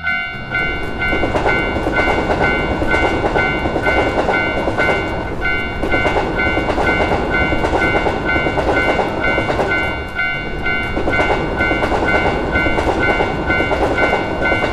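Japanese railroad crossing bell ringing steadily while a train rushes through the crossing. The train's rumble starts abruptly and cuts off near the end.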